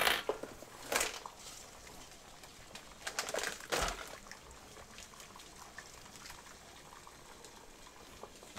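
A spatula stirring and scraping sauce in a cast iron skillet, with a few short scrapes and knocks in the first four seconds, over the faint bubbling of the simmering sauce.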